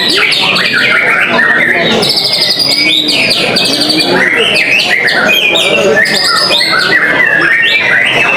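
Murai batu (white-rumped shama) singing without a break: a dense stream of rapid, varied whistles and chirps, the phrases tumbling over one another.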